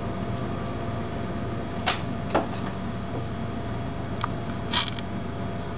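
Raccoons feeding on a wooden deck: four short, light clicks and taps over a steady hum.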